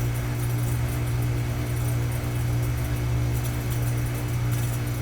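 A running air-conditioning unit giving a steady, even hum from its compressor and fan.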